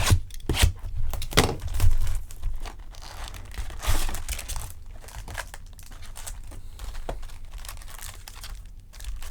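Packaging of a trading card box being torn open: a few sharp rips in the first two seconds and a louder one about four seconds in, then softer crinkling of the wrapper.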